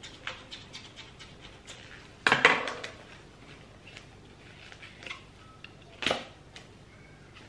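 Retail packaging of a pair of work gloves being handled and opened by hand: a run of small crinkles and clicks, a louder rustling rip a little over two seconds in, and another sharp crackle about six seconds in.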